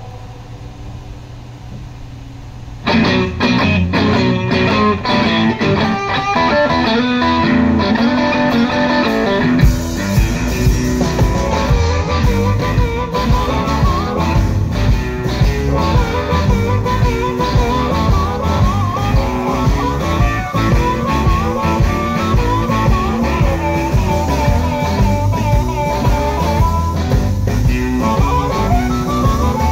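Live electric blues band: after a few seconds of stage hum, electric guitar starts the intro, and the full band with drums and bass comes in around ten seconds. An amplified harmonica then wails and bends over the groove.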